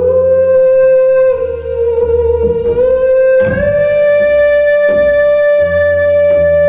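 Live jazz trio of piano, double bass and female voice: one long held high note that slides up a little about three seconds in, over low double-bass notes and a few struck chords.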